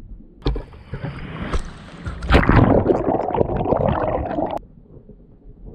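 Water splashing and gurgling around a GoPro held just under the surface. The noise starts sharply, grows loud about two seconds in, and cuts off suddenly near the end.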